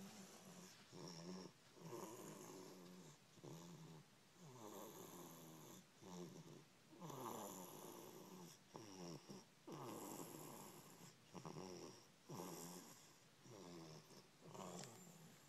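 Baby snoring like a grown person: a steady series of short snoring breaths, about one a second, each sliding in pitch.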